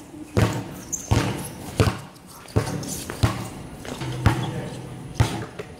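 A basketball bouncing on a concrete court: about seven sharp thuds at uneven intervals, as the ball is dribbled and played.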